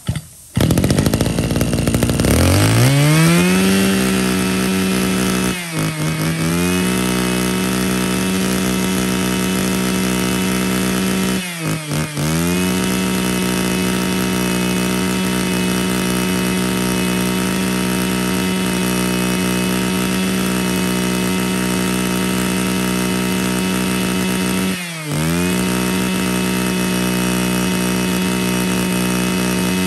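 Mitsubishi TL26 two-stroke brush cutter engine revving up to a steady high-speed whine within the first few seconds and held there. The throttle drops off briefly three times, about 6, 12 and 25 seconds in, each time climbing straight back up.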